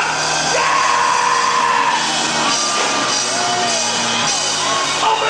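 Loud gospel praise music with a man's voice singing and shouting long held notes through a microphone over it.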